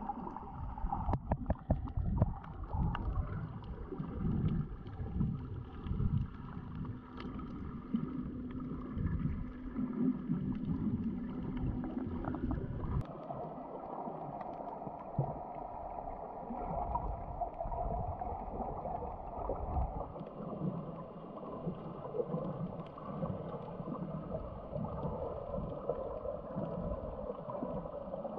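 Water sloshing and gurgling against a snorkeler's waterproof camera, uneven and rumbling with a few knocks, then changing suddenly about halfway through to a steadier hiss.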